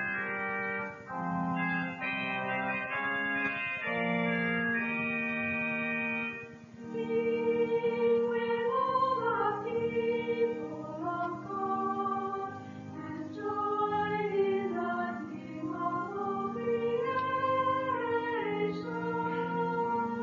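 The 1956 church organ of Bethlehem Lutheran Church, Adelaide, playing held chords with short breaks between them. About seven seconds in, a louder passage begins, with a wavering melody over sustained lower notes.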